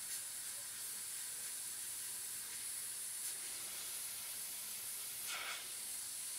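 Omni 5000 dual-action airbrush hissing steadily as it sprays, with a brief louder burst about five seconds in.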